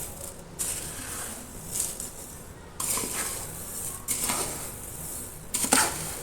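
Dry-roasted spices being stirred together in a wide plate: dry seeds rustle and scrape against the plate in irregular swishes, several times over.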